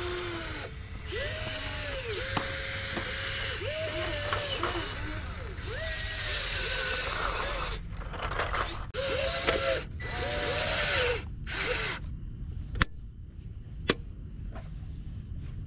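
Electric motors and gearboxes of an RC Volvo EC160E scale excavator whirring as the arm and bucket work: a string of short whines, each rising and then falling in pitch as a control is pushed and released. Near the end, two sharp clicks about a second apart.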